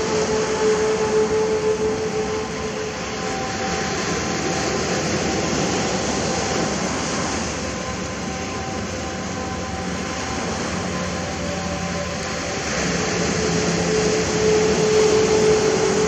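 Sea waves washing continuously onto the shore, swelling louder about three quarters of the way through. Under the surf runs a steady droning hum of a few held tones, strongest at the start and near the end.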